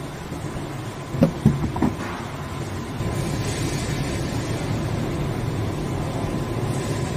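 Vending machine at work after a card payment: a few short knocks about a second in, then from about three seconds in a steady whirr as the spiral motor turns, over a constant hum. The slot is empty, so no product drops and the drop sensor reports a failed delivery.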